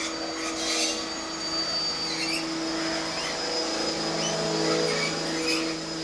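A motor running with a steady hum, and a few short bird chirps over it.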